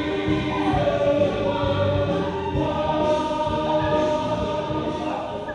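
Choral music: a choir singing long, held notes that bend between pitches, growing quieter near the end.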